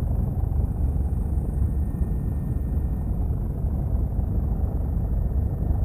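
Helicopter in flight heard from inside the cabin: a steady low drone of rotor and engine.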